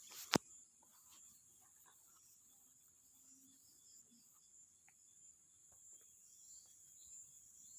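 Magnetic fidget slider coin giving one sharp click about a third of a second in, then a few faint small clicks, over a steady high-pitched hiss.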